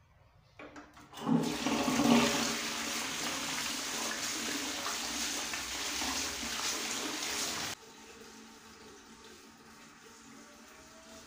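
Toilet being flushed: a few clicks of the flush mechanism, then water rushing into the bowl for about six seconds, rinsing away the blue toilet cleaner. The rush cuts off abruptly and leaves a quieter trickle of water.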